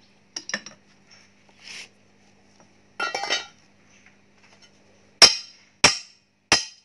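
Light metallic clinks and rattles as the flange and nut are fitted onto a bench grinder's arbor by hand. Near the end come three sharp, ringing metal strikes about two-thirds of a second apart: the wrench on the arbor nut is being knocked tight so the grinding wheel cannot work loose.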